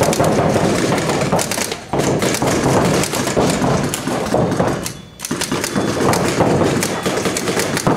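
Paintball markers firing rapid strings of shots, a dense rattle of pops and impacts that briefly lets up about two seconds in and again about five seconds in.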